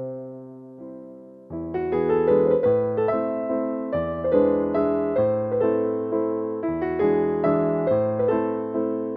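Background music: an electric piano playing a gentle melody of struck notes that die away, with a softer held chord at first and a fuller phrase starting about a second and a half in.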